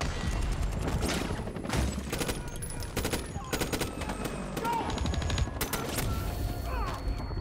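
Automatic gunfire in rapid repeated bursts, a dense fusillade of rifle and machine-gun shots.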